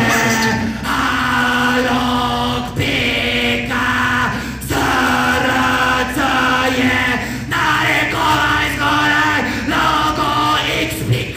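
A man singing long, held, chant-like notes into a microphone, in phrases of one to three seconds with short breaks between them.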